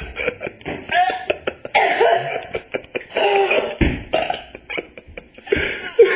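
A woman coughing hard again and again, choking on a spoonful of dry ground cinnamon caught in her throat.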